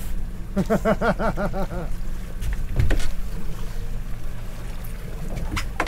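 Small boat's outboard engine idling with a steady low hum. About half a second in, a fishing reel is wound fast, giving a quick run of regular rising-and-falling whirrs for just over a second as the fish is brought up. A sharp knock comes about three seconds in and another near the end.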